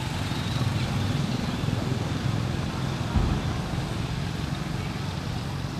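Steady low rumble of background road traffic, with a brief low thump about three seconds in.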